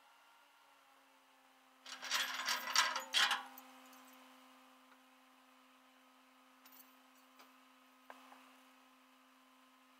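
A tow truck's red tie-down strap and chain rattle and scrape on the aluminum bed as they are picked up, a loud rough burst from about two seconds in lasting a second and a half, over a steady hum. A few faint clicks follow later.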